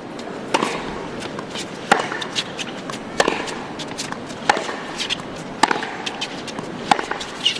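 Tennis ball struck back and forth in a baseline rally on a hard court: about six sharp racket hits, one every second and a quarter or so, with fainter clicks between.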